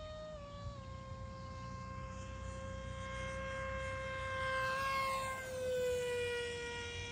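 Electric motor and propeller of a Nano Drak RC flying wing running in flight, a steady whine that steps down slightly in pitch under a second in and sags a little more about five to six seconds in as the throttle eases.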